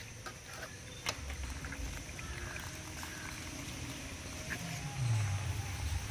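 A low, drawn-out animal call that falls in pitch, about five seconds in, over a few faint clicks.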